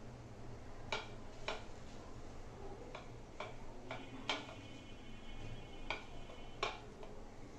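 Light, irregular clicks and taps on a steel plate, about seven in all, as chicken pieces are pressed and turned in breadcrumbs by hand.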